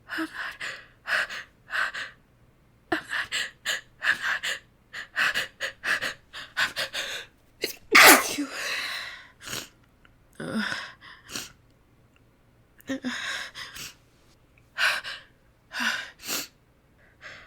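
A woman's quick, catching breaths as a sneeze builds, then one loud sneeze about eight seconds in. More short breaths and gasps follow.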